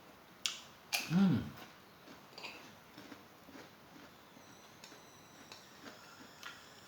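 Quiet eating sounds: two sharp clicks or crunches in the first second, a short low hum-like sound about a second in, then faint small chewing ticks.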